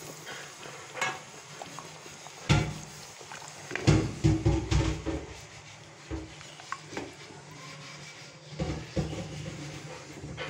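Wooden spoon stirring chicken kofta curry in a metal pot, with irregular knocks and scrapes against the pot. The loudest run of knocks comes about four seconds in, with another a little before the end.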